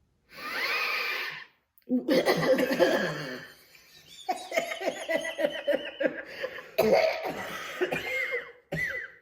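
People laughing in several bouts, with coughing mixed in.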